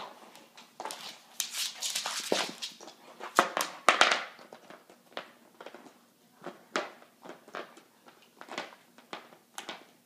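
A dog playing with a large chew bone on a hardwood floor: irregular knocks and scrapes of the bone against the wood and claws clicking, busiest and loudest in the first half, then sparser.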